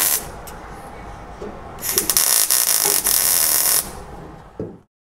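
MIG welder laying short stitch welds along the edge of a sheet-steel patch panel: a crackling, buzzing arc that stops just after the start, strikes again about two seconds in and runs for about two seconds.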